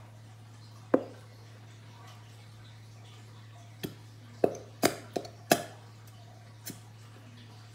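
Sharp plastic clicks and pops as a squeeze bottle of glue is squeezed over a plastic mixing bowl: one about a second in, then a quick irregular cluster of five or six a few seconds later.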